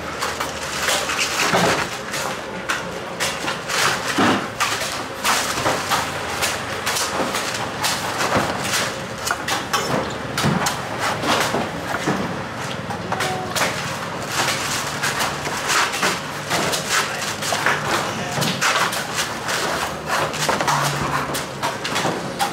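Knife chopping coconuts: many irregular sharp strikes, with market voices in the background.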